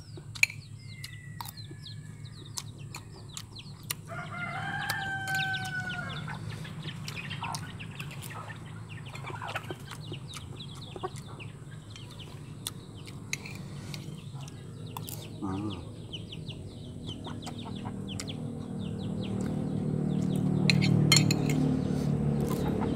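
Chickens calling, with a rooster crowing once about four seconds in, over light clicks of a spoon on a plate. Near the end a vehicle's engine rumble grows louder.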